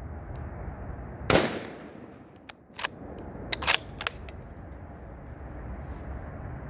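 A single .270 rifle shot about a second and a half in, its report trailing away over about half a second. It is followed by a few short, sharp clicks over the next couple of seconds.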